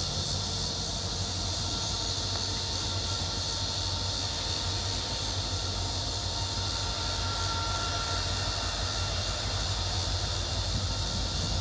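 Union Pacific SD70ACe and SD60M diesel locomotives of a freight train approaching from a distance, a steady low rumble, under a steady high-pitched hiss.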